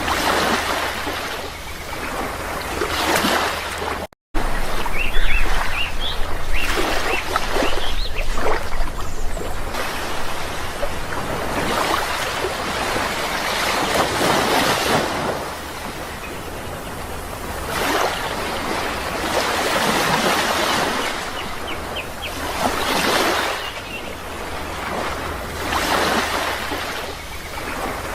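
Sea waves breaking and washing in, the rushing noise swelling and falling away every few seconds. The sound cuts out briefly about four seconds in.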